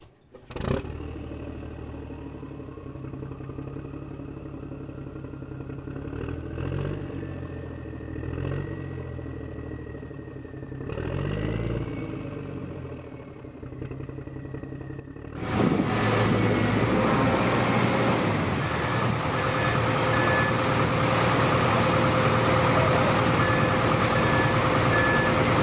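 Heavy-vehicle engine running steadily and revving up and back down several times. About halfway through it cuts suddenly to a louder, rougher truck engine, with bursts of short, high reversing beeps.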